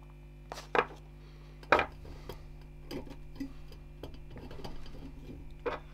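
Scattered light metallic clicks and clinks as the CPU cooler's metal mounting brackets are handled and shifted on the heatsink, the sharpest knock a little under two seconds in.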